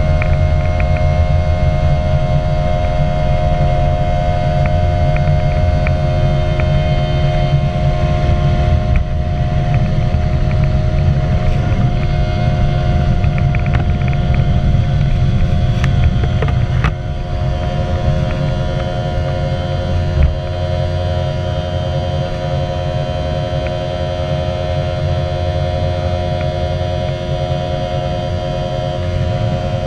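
Rolls-Royce BR715 turbofan of a Boeing 717 at takeoff thrust, heard from inside the cabin: a loud steady drone with several steady humming tones over a low rumble. The low rumble eases just past halfway as the aircraft leaves the runway, and there is a brief thump about twenty seconds in.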